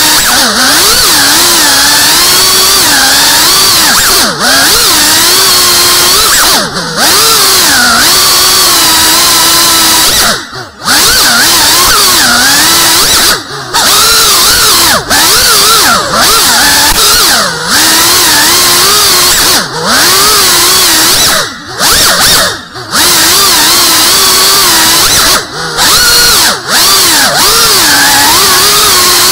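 Electric motors and propellers of an FPV quadcopter in flight, a loud whine whose pitch rises and falls with the throttle. It drops away for a moment every couple of seconds.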